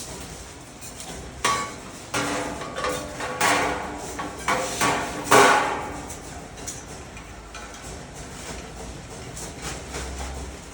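Metal parts of a steel microwave stand knocked several times during assembly, each knock ringing briefly, the loudest a little past the middle.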